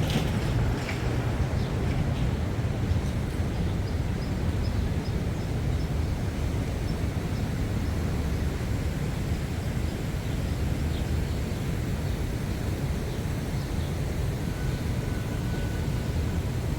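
Steady low rumble of city traffic, with a short run of faint high chirps about a quarter of the way in.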